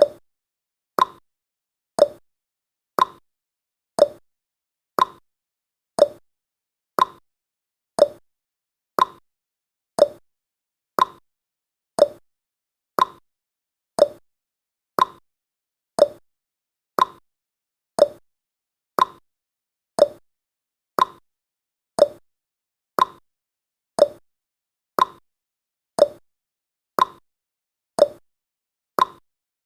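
Clock tick-tock sound effect: a sharp tick about once a second, alternating between a higher and a lower pitch, marking the countdown's seconds.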